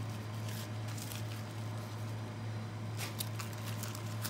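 Napa cabbage leaves being pulled off the head with gloved hands, with a short cluster of crisp clicks about three seconds in, over a steady low hum.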